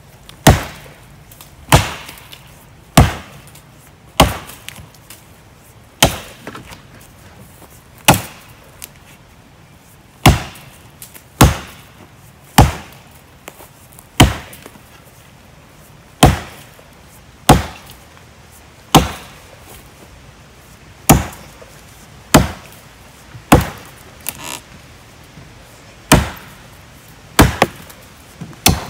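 Axe chopping into the trunk of a slender standing tree to fell it: about twenty sharp strikes, one every second or two.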